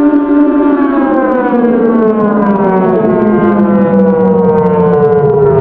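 Civil defence siren sounding one long, loud tone with several overtones. Its pitch holds for about a second, then falls slowly as the siren winds down.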